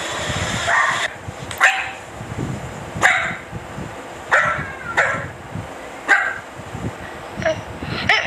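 Dachshunds barking: about eight short, sharp single barks, a second or so apart.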